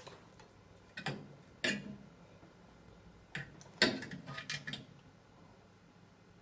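Metal utensil knocking and scraping on a metal oven tray while slices of gammon are moved onto it: scattered clinks, a cluster of them, with the loudest, a little past the middle.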